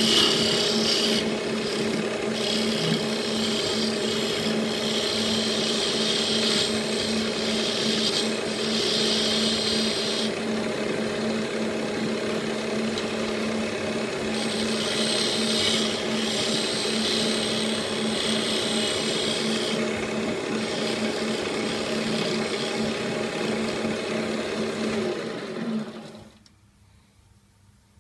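Small wood lathe running with a steady motor hum while a hand-held turning tool cuts an inlaid-wood (marquetry) kamancheh bowl button, the cutting rasp coming and going in several passes. The lathe shuts off near the end.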